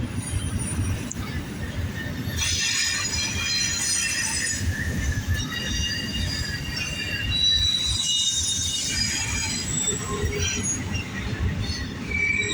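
Steel wheels of a double-stack freight train squealing against the rails as the cars roll past: several high-pitched squeals that come and go and overlap, over the steady low rumble of the moving cars.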